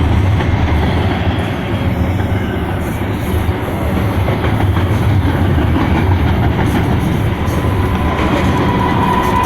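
Freight train rolling past at close range: a steady loud rumble of cars and wheels on the rails with a clickety-clack. A thin high tone creeps in near the end.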